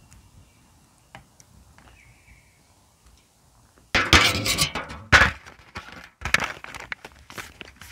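A few faint light ticks, then from about four seconds in loud crinkling and clattering of thin aluminium foil trays being handled, one pressed down over the other as a lid.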